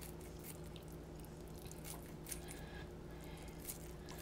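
Kitchen scissors snipping through cooked lobster meat, a few faint short cuts, over a steady low hum.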